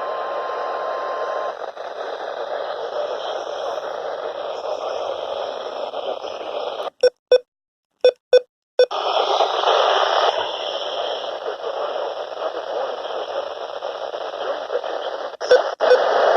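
Weather radio receiver playing a hissing, static-filled broadcast. A steady tone near 1 kHz, the end of the weather radio alert tone, stops about a second and a half in. The hiss then cuts out to silence several times with short pops, around seven to nine seconds in and again near the end.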